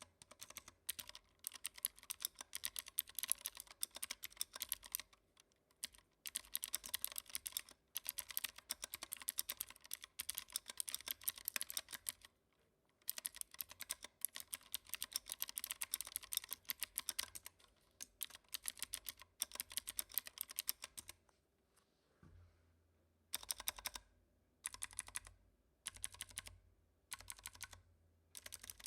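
Typing on a WhiteFox mechanical keyboard with clicky Kailh Blue switches and foam-dampened case: long fast runs of key clicks broken by short pauses, then, in the last few seconds, short bursts of a few keystrokes with gaps between them.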